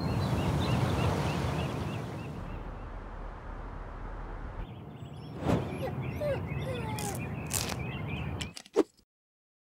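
Outdoor ambience of a steady low background hum with small birds chirping, cut by two short knocks about two seconds apart, then cutting off suddenly to silence near the end.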